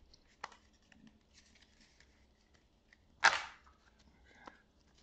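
Pokémon trading cards handled on a table: faint clicks and rustles, with one short, loud rustle about three seconds in.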